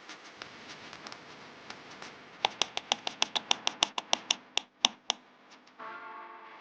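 A quick run of sharp clicks, about six a second, spacing out near the end, like a hand tool being worked. A steady hum with several pitches starts shortly before the end.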